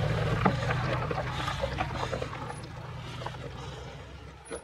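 Ram pickup truck pulling away on a gravel road. A low engine rumble fades steadily as it moves off, with scattered crunches and pops of gravel under the tyres.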